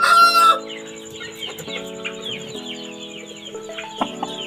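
A rooster's crow trails off with a falling pitch about half a second in. After it, many small high chirps follow one another several times a second: chicks peeping.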